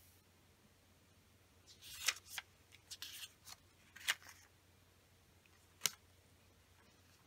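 Small squares of origami paper handled on a table: a cluster of short, crisp rustles and snaps as the sheets are picked up and shifted about two seconds in, then a single sharp tap of paper near the end.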